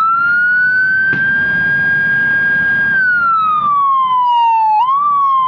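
Home-made electronic siren module imitating a Whelen Epsilon siren, sounding a wailing tone. The tone climbs to a high note, holds for about a second and a half, then slowly falls. Near the end it jumps up briefly and starts falling again.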